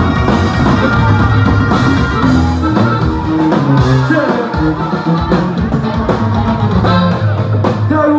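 Live band music: a male singer over guitar and upright bass, with steady bass notes throughout.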